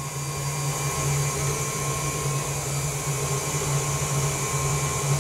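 Electric stand mixer running steadily with its flat beater, beating almond cream of butter, sugar, egg and ground almonds to lighten it and give it volume.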